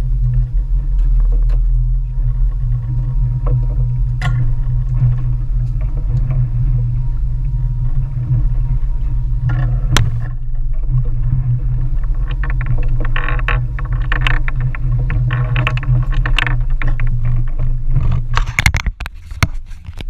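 Boat engine running with a steady low drone as the boat moves over the sea. Near the end the drone drops away under knocks and rustles from the camera being picked up and handled.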